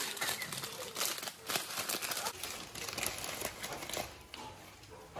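Plastic instant-noodle packets crinkling as they are handled, in quick crackly bursts that are densest in the first couple of seconds and die down after about four seconds.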